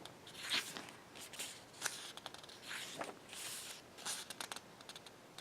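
Pages of an album photo book being turned and handled: a series of short paper swishes and light taps.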